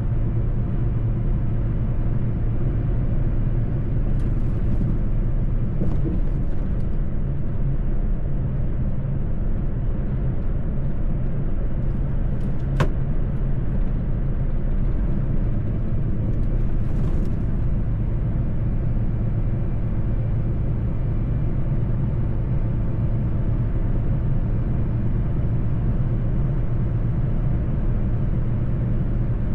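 Mercedes-Benz truck engine running at a steady cruise, a continuous low drone with road noise, with a single sharp click about thirteen seconds in.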